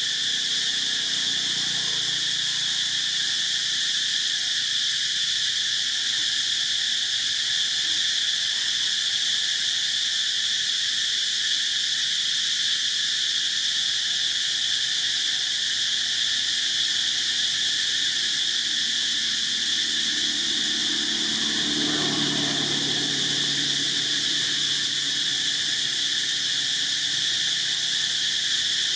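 Steady, high-pitched drone of a chorus of insects. A low rumble swells and fades about twenty-two seconds in.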